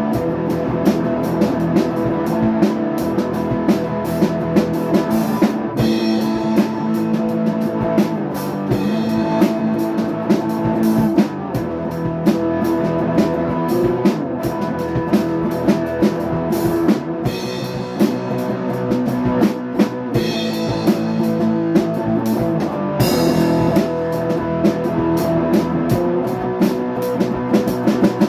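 Instrumental rock music with a drum kit keeping a steady beat under sustained guitar chords.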